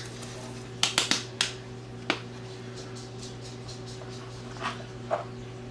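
A spice container of paprika being handled: several sharp clicks and taps about a second in and another near two seconds, then a couple of fainter ones near the end, over a steady low electrical hum.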